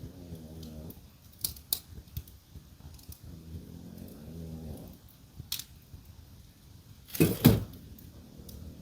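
French bulldog snoring, two drawn-out snores about three seconds apart, over a wood fire crackling with sharp pops; the loudest pop comes about seven seconds in.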